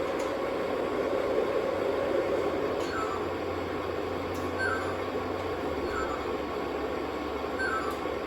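Two Lionchief Santa Fe O gauge model trains running on the track together, a steady rumble of motors, wheels and locomotive sound effects. From about three seconds in, a short falling chirp repeats about every one and a half seconds.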